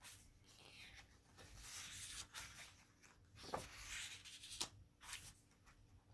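Thick photobook pages being turned by hand: faint paper rustling with a few soft flicks as the pages fall over.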